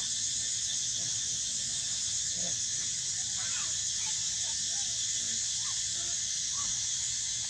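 Faint, short squeaking calls from infant macaques, rising and falling in pitch, several times over a steady high-pitched hiss.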